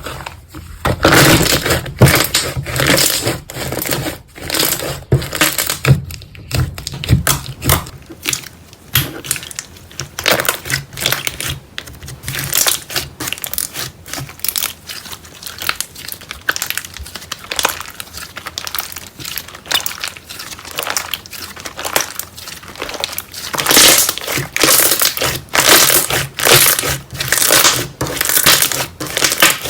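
Slime being squished and pressed by hand, giving a dense run of irregular crackling and crunching sounds.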